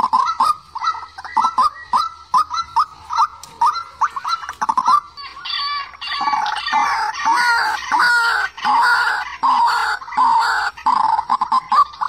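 Young white-breasted waterhen calling: a fast run of short, clucking notes, several a second, that about five seconds in turns into louder, denser, more varied croaking calls.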